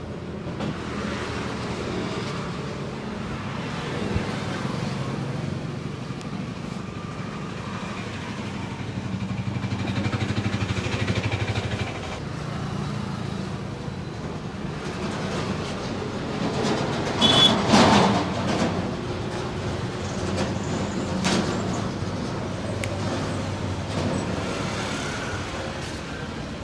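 Roadside traffic noise: vehicles running by steadily. One vehicle passes louder about seventeen seconds in.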